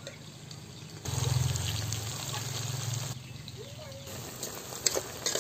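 Chicken masala sizzling in a pan on a wood fire. The sizzle is louder for a couple of seconds starting about a second in, then softer, with a few sharp clicks near the end.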